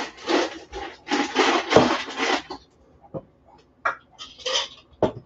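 Ice cubes scooped with a metal cocktail shaker tin from a freezer ice bin: two rattling, scraping scoops, then a few separate clinks and knocks.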